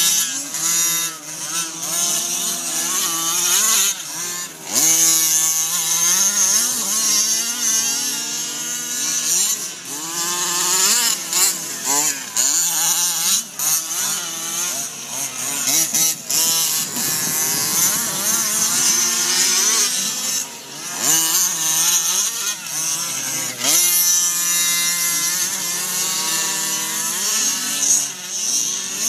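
Small two-stroke petrol engines of several 1/5-scale RC off-road cars revving up and down as they race, with overlapping engine notes rising and falling over each other.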